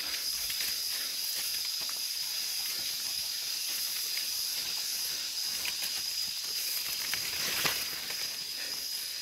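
Footsteps and rustling of tall grass and leaves brushing against hikers on an overgrown trail, over a steady high hiss with a thin whine. One louder rustle comes about three-quarters of the way through.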